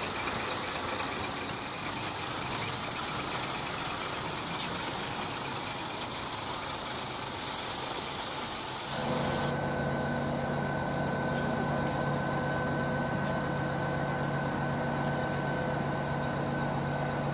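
Heavy crane lorry's diesel engine running steadily, with one sharp click about four and a half seconds in. About nine seconds in the sound changes to a steadier, slightly louder engine hum.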